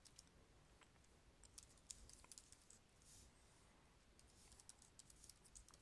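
Faint computer keyboard typing: scattered keystroke clicks, with short runs about two seconds in and again near the end.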